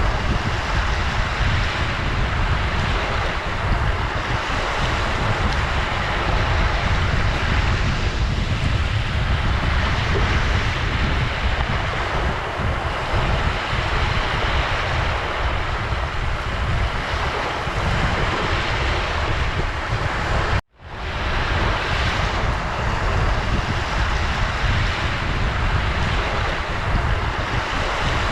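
Ocean surf: a continuous wash of waves with slow surges and a heavy low rumble. The sound drops out for a split second about twenty seconds in, then resumes.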